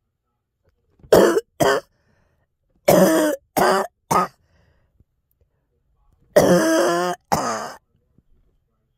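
A girl coughing: seven short coughs in three fits, two, then three, then two, with pauses between.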